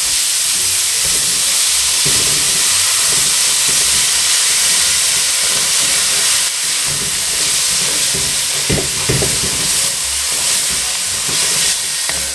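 Frozen chopped onions sizzling in a hot pan of frying curry powder, a loud steady hiss of frying and steam, with a spoon now and then stirring through them.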